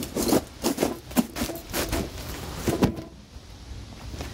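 A large cardboard shipping box being tipped up and opened, with irregular rustles, scrapes and knocks of cardboard and plastic wrapping that die down about three seconds in.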